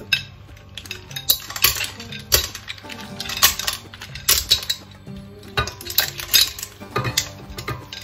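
Raw shellfish and seafood (mussels, clams, shrimp, squid rings) tipped from a glass bowl with a wooden spoon into a stainless steel pot: an irregular clatter of a dozen or so sharp knocks of shells, spoon, glass and metal.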